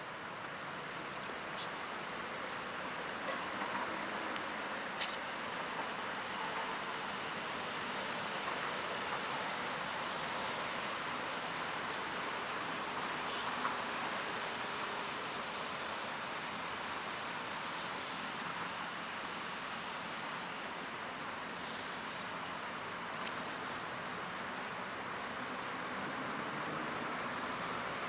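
Crickets and other night insects calling steadily in several high, unbroken tones, with one insect chirping in a quick, regular pulse that stops near the end, over a faint steady hiss.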